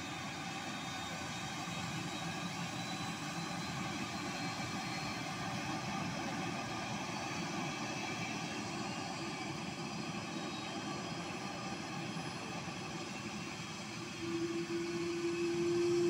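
Parked helicopter's turbine engine running at idle: a steady whine of several held tones over an even rushing noise. Near the end a louder steady low hum comes in and the level rises.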